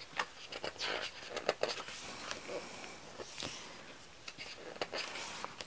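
Pages of a photo book being handled and turned by hand: soft paper swishes and scattered small taps and clicks.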